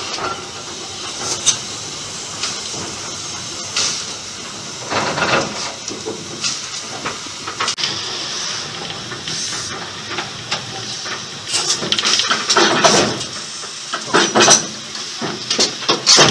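Steam locomotive hissing steam steadily, with irregular louder rushes of steam.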